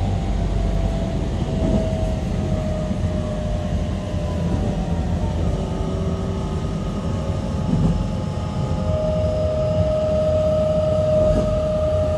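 Running sound of a JR Kyushu 813 series electric train: steady rail-and-wheel rumble under the whine of the traction motors, whose tones drift a little in pitch. A stronger steady whine comes in about nine seconds in.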